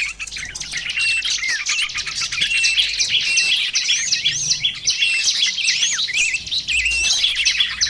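Dense mixed chorus of small songbirds: many high-pitched chirps, trills and quick rising and falling whistles overlapping without pause. It is a lure recording of several small bird species calling together.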